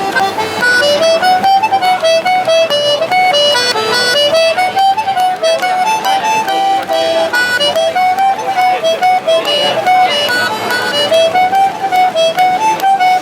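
Traditional Irish dance tune played on a melody instrument, a quick, steady run of notes.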